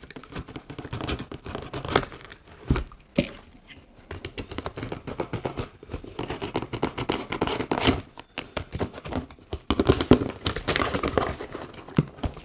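A product box being unpacked by hand: packaging rustling and crinkling, with scraping and a few sharper knocks about two and three seconds in.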